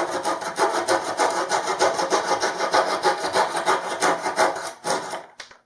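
Fine-toothed razor saw cutting off an excess wooden dowel, in quick even strokes about seven a second; the sawing stops about five seconds in.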